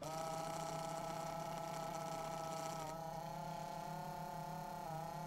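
Viair 85P portable 12-volt air compressor running steadily as it inflates a truck tire, a steady whine with slight dips in pitch about three and five seconds in.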